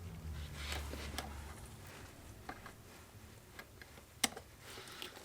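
Faint, scattered small clicks and taps from the shift selector rod and its tight retaining clip being worked into place by hand, with one sharper click about four seconds in.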